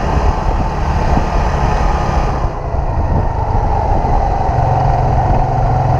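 Motor scooter engine running during a ride through traffic, with a steady noisy rush. About two and a half seconds in the hiss eases, and in the second half a steady low engine hum comes up.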